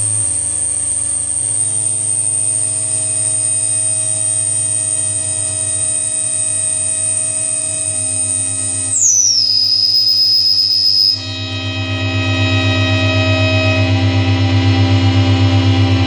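Handmade six-oscillator drone synthesizer playing a layered drone: a low hum with many steady tones stacked above it, shifting as its knobs and body contacts are worked. A high tone above it glides down about nine seconds in and cuts off suddenly about two seconds later. After that the low drone throbs with a fast, regular wobble.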